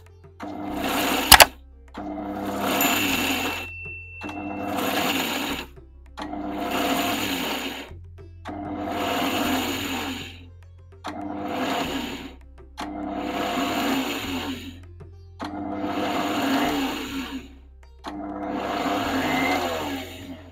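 Kitchen mixer grinder (mixie) pulsed in short runs of about a second or two, roughly nine times, to grind dry-roasted cumin, coriander seeds, chillies and peanuts to a coarse, semolina-like texture. There is a sharp click about a second in.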